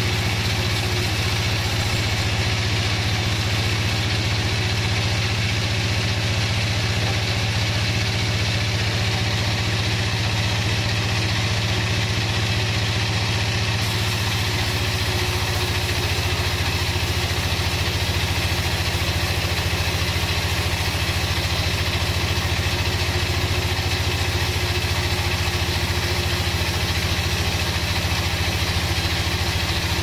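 Band sawmill running steadily as its blade cuts a slab off a teak log: a constant low motor drone under the hiss of the cut. The tone shifts slightly about halfway through, with more high hiss after.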